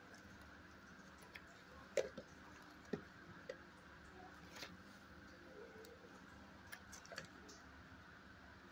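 Near silence: quiet room tone with a faint steady hum and a few soft scattered clicks and ticks, the clearest about two and three seconds in.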